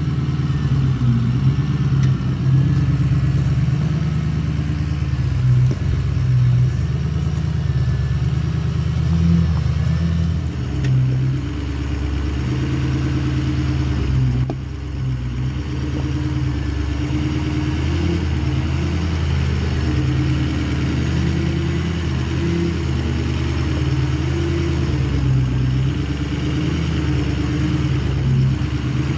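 Ford F-250's Power Stroke diesel engine running under load as the truck crawls up a rocky hill, with a steady low drone and small rises in revs.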